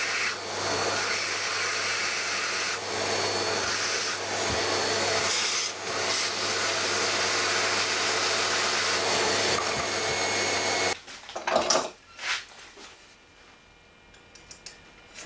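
Vacuum cleaner running steadily with a hiss of air and a low motor hum, switched off about eleven seconds in, followed by a few knocks and handling sounds.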